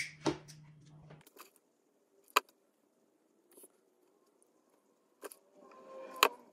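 A few sharp, isolated clicks and taps of hands handling craft tools and satin ribbon at a table, a lighter and then a hot glue gun, the loudest near the end as the glue gun is taken up. A faint low hum stops about a second in.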